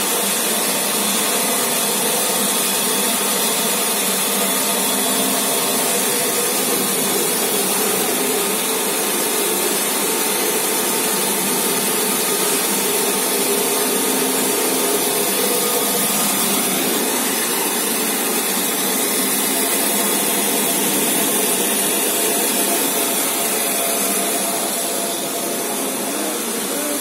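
Band saw of a manual hand-towel paper cutting machine running steadily, its blade cutting through stacks of folded paper hand towels, a constant machine whine with no pauses.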